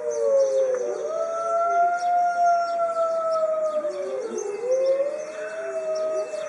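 A pack of Arctic wolves howling together in chorus: several long howls overlap, their pitches sliding and crossing, one dropping and another rising about four seconds in.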